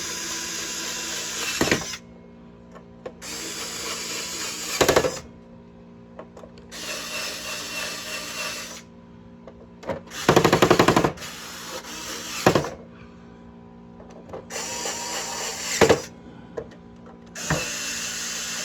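Electric drill-driver running in six short bursts of one to two seconds, driving in screws; several bursts end in a brief louder spike as a screw tightens. The fourth burst, about ten seconds in, is the loudest and has a rapid clicking through it.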